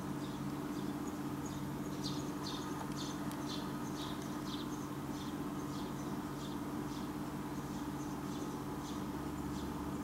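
A small bird chirping: a run of short high notes, about two a second, clearest in the first half and fading later, over a steady low hum.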